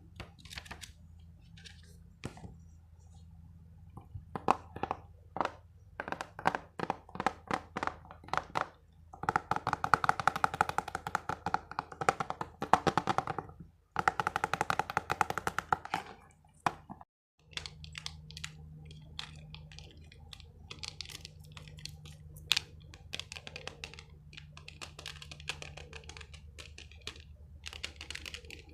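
Quick, irregular taps and clicks on a small hard object, with a dense run of fast tapping in the middle and a short break a little after halfway.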